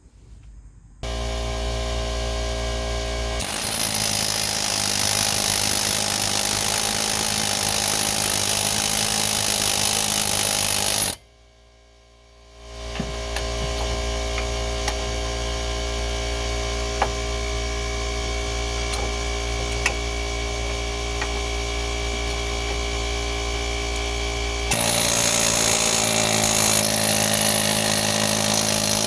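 A power tool running in two long runs with a short stop of about a second and a half near the middle, getting louder a few seconds into the first run and again near the end, as the 14 mm bolts holding the wheel hub bearing are spun out.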